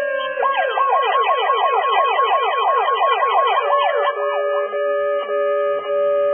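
Police siren: a falling wail switches about half a second in to a rapid yelp, sweeping up and down about five times a second. After about four seconds it gives way to steady held tones.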